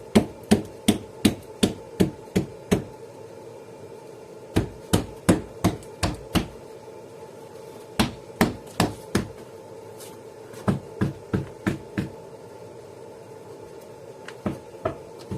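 Repeated sharp taps on a freshly fitted car windscreen, bedding the glass down into its sealant bead. They come in runs of about three taps a second with short pauses between.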